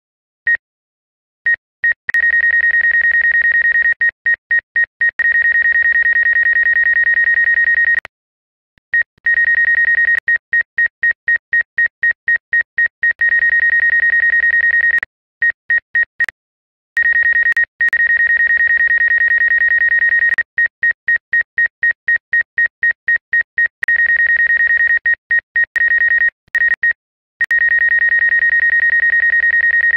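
Rapid electronic beeping: a high tone of one steady pitch, pulsing many times a second, with a few short breaks.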